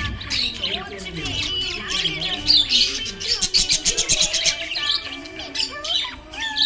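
Budgerigar chirping and warbling in quick, high calls, with a fast run of rapid repeated chirps in the middle.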